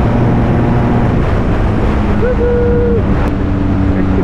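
Maxi-scooter engine running at motorway speed under heavy wind rush on the microphone, its steady engine tones shifting slightly about a second in. About halfway through, a single held tone lasts under a second.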